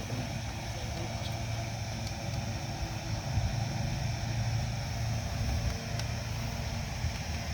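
Steady low mechanical hum, like a motor running, with a few faint ticks.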